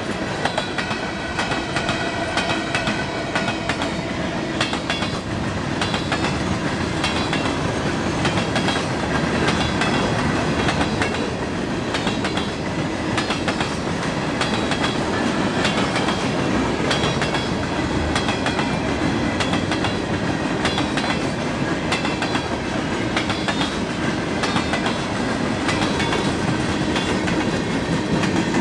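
Train cars rolling steadily past, wheels clicking over the rail joints in a continuous clickety-clack with the rumble of the cars.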